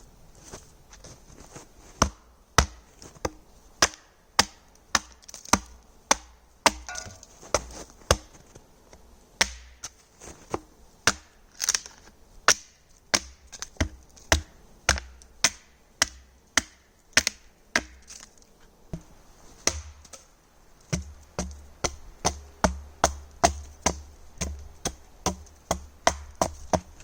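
Wood being chopped: repeated sharp blows into a dead tree stump, coming about one to two a second with brief pauses, as slabs are cut from it for a cutting board.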